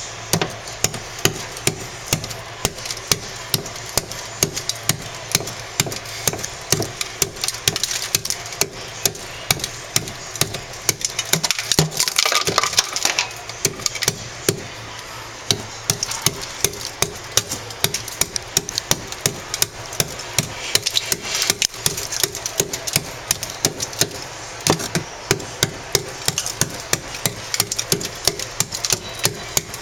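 Rapid, irregular sharp knocks, several a second, like chopping or tapping on wood.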